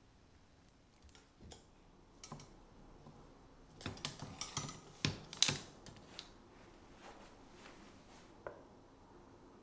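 Light clicks and knocks of a metal wire cooling rack and utensils being handled as a glazed roll cake is lifted off the rack, a scatter of small strikes that grows busiest and loudest about four to five and a half seconds in, then falls back to a few faint ticks.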